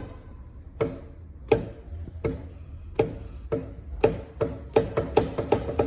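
Metallic clunks of a GM engine's crankshaft being shoved back and forth by hand, knocking against its thrust faces. The clunks come about every three quarters of a second, then quicken in the last two seconds. The free play behind them is excessive crankshaft end play from worn thrust washers.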